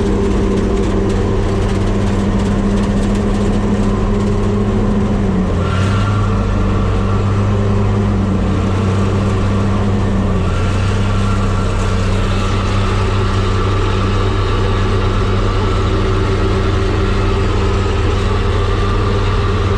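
Tractor engine running steadily while towing a baler along the road, its note dipping slightly about five seconds in and again around ten seconds.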